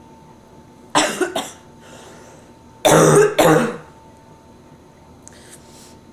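A person with bronchitis coughing in two fits: a pair of short coughs about a second in, then two louder coughs around three seconds in.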